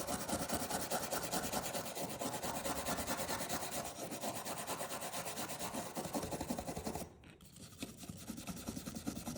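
Wire brush scrubbed rapidly back and forth over a pocket knife blade, cleaning the metal: a fast, dense rasping. It drops off about seven seconds in, leaving softer scrubbing.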